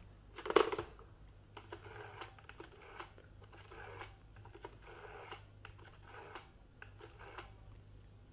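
Telephone sound effect: a knock as the receiver is picked up, then a rotary dial turned several times, each digit a short burst of clicking about a second apart.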